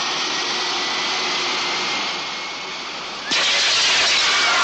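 Jet airliner's engines running with a steady rushing noise and a faint high whine; a little over three seconds in, the noise jumps suddenly louder and harsher.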